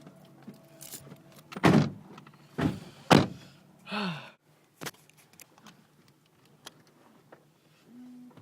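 Car doors being shut: three heavy thumps in the first few seconds, then a sharper click.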